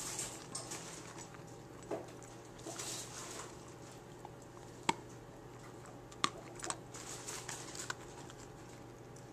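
Border collie chewing and gnawing the crunchy cone of an ice cream cone dog treat: scattered crunches and crisp clicks, the two sharpest a little under 5 seconds and about 6 seconds in.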